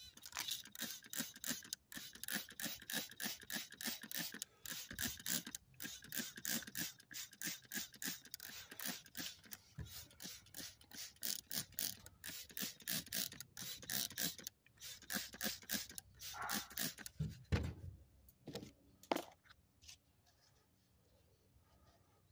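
Plastic trigger spray bottle misting potting soil, pumped rapidly about three squirts a second; the squirting stops about fifteen seconds in. A few louder knocks of plastic being handled follow near the end.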